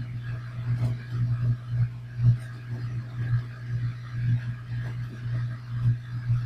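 Brush pen inking on sketchbook paper, with light scratching and dabbing strokes. Beneath it runs a steady low hum that rises and falls in level.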